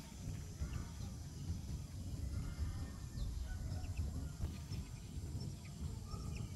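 Outdoor rural ambience: a steady low rumble with faint, brief bird chirps here and there.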